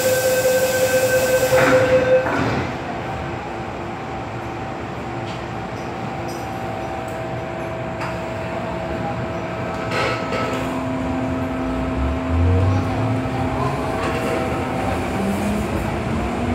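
MTR M-train electric multiple unit heard from inside the car: a steady warning tone and the hiss of the doors closing stop about two seconds in, then the train pulls away, with running noise and a motor tone that rises in pitch as it picks up speed.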